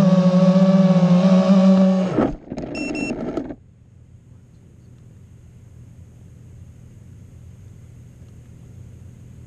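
Vifly X150 FPV quadcopter's motors and propellers buzzing at a steady high pitch, then dropping in pitch and cutting off about two seconds in as the quad crashes into tall grass, with a second of rustling clatter before the motors stop. A faint steady hiss remains after.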